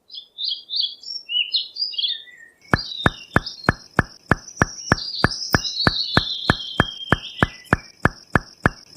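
Birds chirping, then a steady run of sharp knocks, about three a second, starts under the continuing birdsong.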